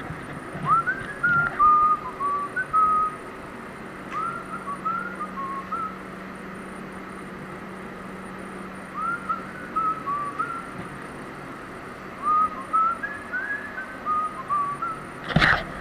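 A person whistling a tune in four short phrases, over a steady low hum. A sharp knock comes near the end.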